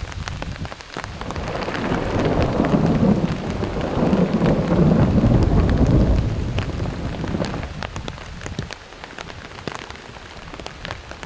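Rain falling, with many sharp drop ticks close by, under a long roll of thunder that builds over a few seconds, peaks about five seconds in and dies away by about eight seconds.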